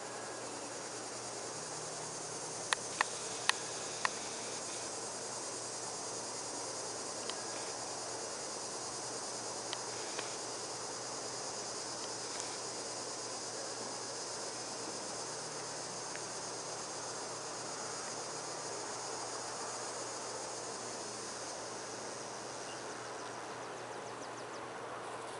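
Steady chorus of crickets chirring in the evening. Four sharp clicks come in quick succession about three seconds in.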